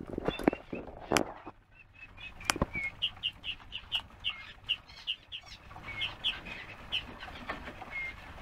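Aviary birds calling: a few sharp clicks early on, then a run of short high chirps, about three or four a second, with a few short whistled notes between.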